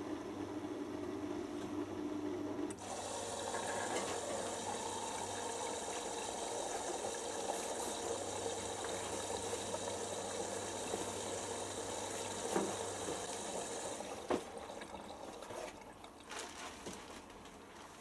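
Bosch Hydrosensor WFP3300 front-loading washing machine at the start of its first rinse: a steady hum stops about three seconds in and water rushes in to fill the drum. The inflow stops near the end, leaving a few clicks and knocks.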